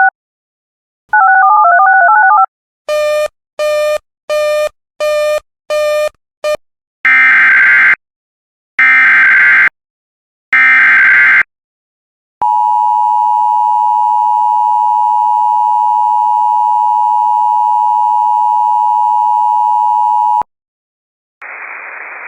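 Emergency Alert System tones: a warbling two-pitch tone and a quick run of short beeps, then three buzzy one-second SAME header data bursts, then the steady two-tone attention signal held for about eight seconds before it cuts off. Radio hiss comes in near the end.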